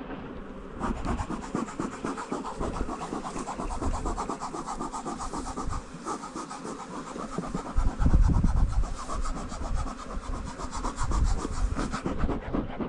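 Beekeeper's smoker bellows pumped in a quick, steady rhythm of short puffs, stopping near the end.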